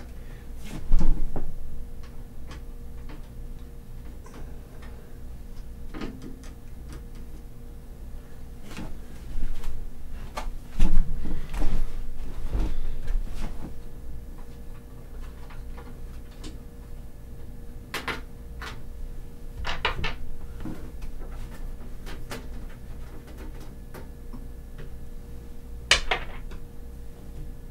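Unscrewing and handling a desktop computer case's side panel with a screwdriver: scattered clicks, scrapes and knocks, two heavier knocks early and midway, and a few sharp metallic clinks later on.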